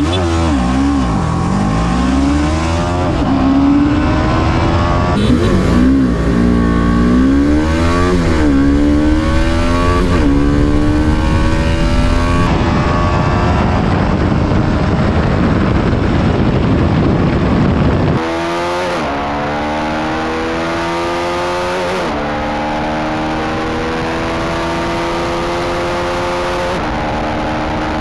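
TVS Apache RR 310 single-cylinder engine at full throttle, revving up and shifting up through the gears several times over a heavy rumble of wind noise. About two-thirds of the way through, the sound cuts to a quieter run in the higher gears, where the pitch climbs slowly between shifts.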